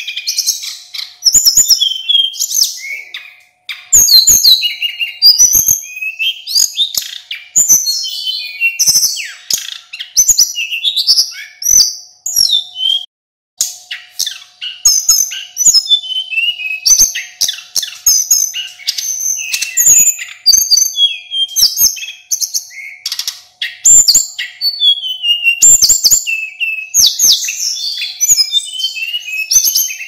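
A male sulingan gunung, a small flycatcher, singing a long run of quick, varied whistled phrases with many rising and falling notes. The song breaks off briefly about halfway through, and a faint steady hum sits under it.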